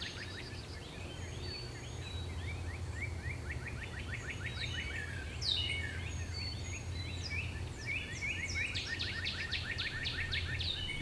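Birds chirping in fast runs of quick, downward-sweeping notes, several a second, over a steady low hum.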